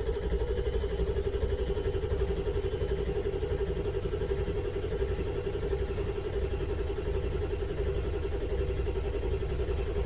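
Starter cranking a 7.3 L Power Stroke V8 diesel: the engine turns over steadily with a quick, even pulse and a constant starter whine, but it never fires. It is a crank-no-start, with injection control pressure building only to about 265 psi while the IPR is maxed at 65%, not enough high-pressure oil to start.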